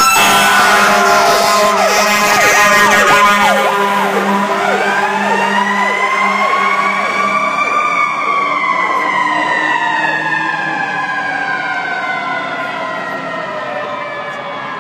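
Fire truck sirens going by. A fast yelp repeats for the first four seconds or so, then a slow wail rises to a peak about eight seconds in and falls away, growing fainter as the trucks move off.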